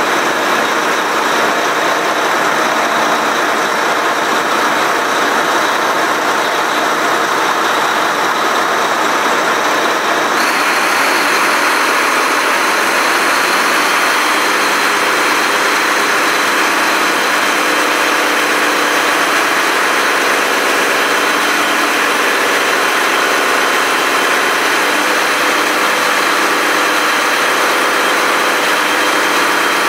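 Volvo Penta D13 marine diesel of an IPS1200 drive running steadily, heard loud inside the engine room. About ten seconds in, a higher hiss and whine gets louder and stays that way.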